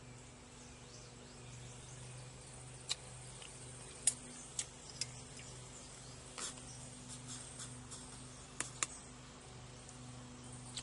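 Scattered small clicks and light taps of camp cookware being handled, about eight in all, over a faint steady low hum.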